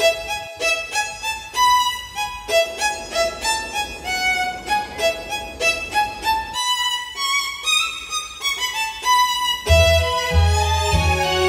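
Background music: a melody of short, quick pitched notes, with a low bass part coming in near the end.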